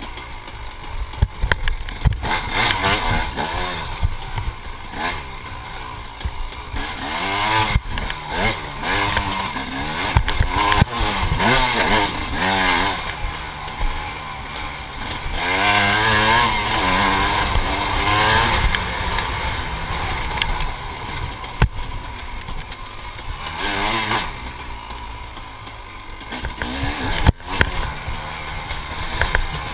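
Dirt bike engine revving up and down as it is ridden over rough ground. Its pitch rises and falls again and again, with frequent knocks and rattles from the bike over bumps.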